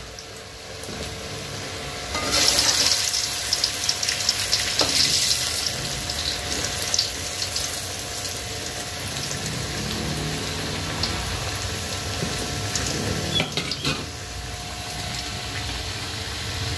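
Boiled cassava pieces deep-frying in hot oil in a wok, a steady sizzle and crackle. The sizzle jumps louder about two seconds in as more pieces go into the oil.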